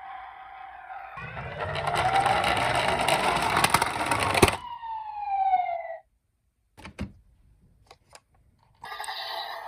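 Toy ambulance electronic sirens. One siren sweeps up and down over a clattering rattle and cuts off suddenly, followed by a tone falling in pitch as it winds down. After a short silence with a few clicks, another siren starts near the end.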